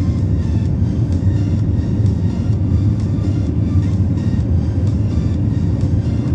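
Steady, loud low rumble of jet engines and airflow heard inside an Airbus A320 cabin, with music playing over it.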